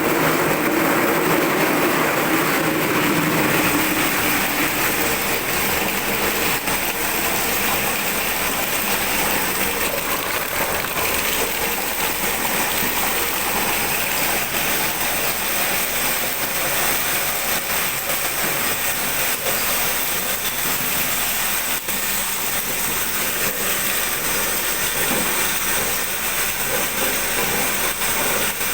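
Crystal ice (tube ice) making machines running, a steady, loud mechanical noise with no breaks.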